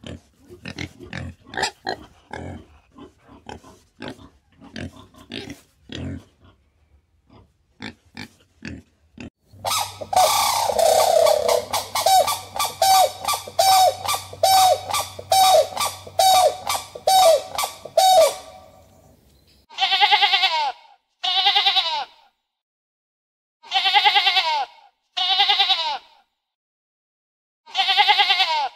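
Pig grunting in short, quick grunts. Then about ten loud calls repeat evenly, under a second apart, and after a gap come five separate bleats with a wavering pitch.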